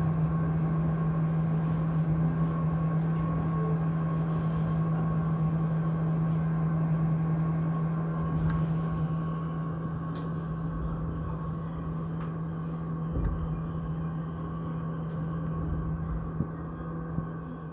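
JR Ome Line electric train, heard from inside at the front car: a steady electric hum with a low rumble and a few faint clicks, its level easing slightly as the train comes in to Okutama terminal.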